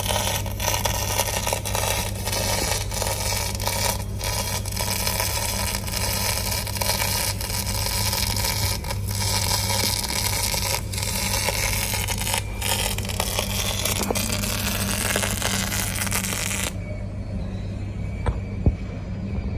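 MIG welding arc on copper, crackling steadily with sharp pops over a steady low hum. The arc cuts off suddenly near the end, leaving only the hum.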